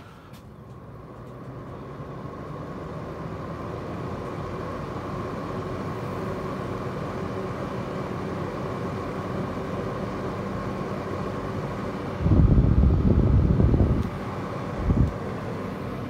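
Roof-mounted caravan air conditioner starting up and running on battery-and-inverter power: its fan hum rises over the first few seconds, then settles into a steady hum with a faint steady whine. About twelve seconds in, a much louder low rumble lasts nearly two seconds, and a shorter one follows near the end.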